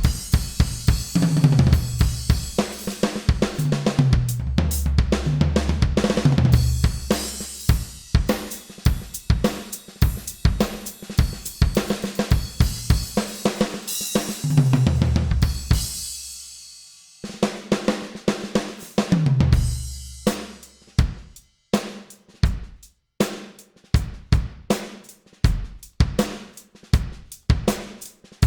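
Drum solo on a Millennium MPS1000 electronic drum kit with miked low-volume cymbals: busy fills with tom runs, a brief pause about two-thirds of the way through as a crash rings out, then a sparser steady beat.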